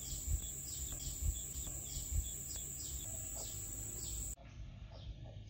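Outdoor insect ambience: a steady high-pitched drone with short chirps repeating about twice a second, and a few low thumps. It cuts off abruptly about four seconds in, leaving a quieter background.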